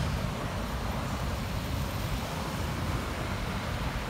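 Steady road traffic noise: a low rumble under an even hiss, with no single event standing out.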